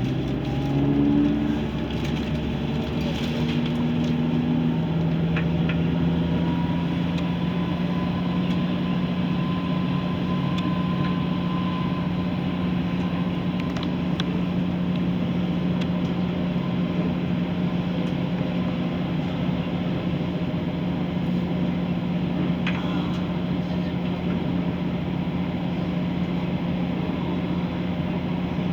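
ScotRail Class 170 Turbostar diesel multiple unit under way, its underfloor diesel drivetrain giving a steady, loud howl over the running noise. The howl's pitch climbs a little in the first several seconds, then holds steady.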